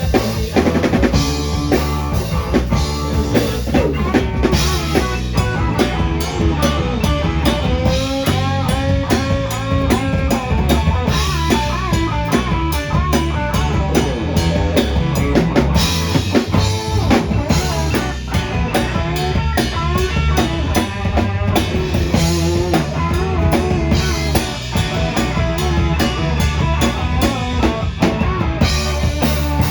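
Rock band playing live, with a drum kit keeping a steady beat under electric guitar.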